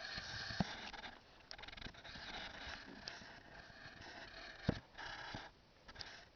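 Handling noise from a hand-held camera being panned: rubbing and scraping on the body and mic, with scattered clicks and a louder knock a little over four and a half seconds in.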